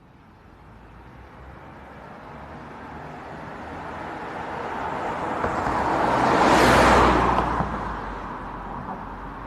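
A vehicle driving past, its noise growing steadily louder to a peak about seven seconds in and then falling away.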